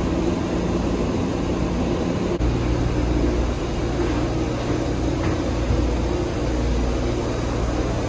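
Steady drone of aircraft and ramp machinery at an airport gate, a low hum with a hiss above it, which turns deeper and fuller about two and a half seconds in.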